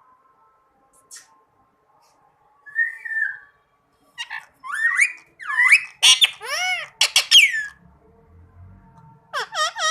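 Indian ringneck parakeet calling: a short call about three seconds in, then a loud run of sharp squawks that rise and fall in pitch, and a few quick calls again near the end.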